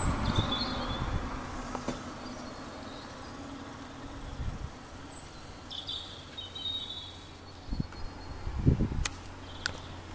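Outdoor ambience: a low rumble with a few faint, high bird chirps, then some low thumps and two sharp clicks near the end.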